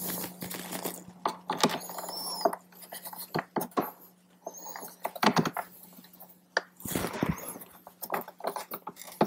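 Clicks, taps and light scrapes of screws being hand-started into a plastic speaker adapter and grille in a motorcycle saddlebag lid, with a few short high squeaks about two and five seconds in. A steady low hum runs underneath.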